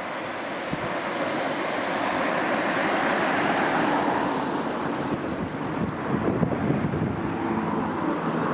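Electric multiple-unit train running along the track: a rushing rolling noise that swells to its loudest three to four seconds in, then eases off. Near the end comes a run of wheel knocks over rail joints.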